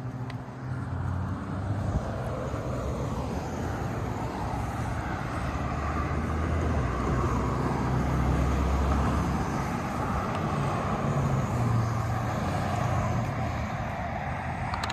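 A steady engine rumble that builds over the first few seconds and stays loud, swelling to a peak about halfway through.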